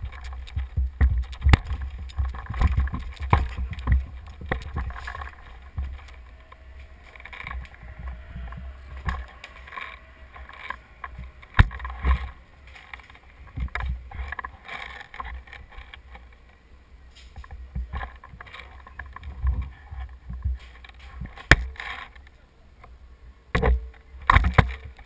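Footsteps crunching over rubble and wooden planks, an irregular run of scrapes and knocks with a few sharper knocks, over a steady low rumble of handling noise on the body-worn camera's microphone.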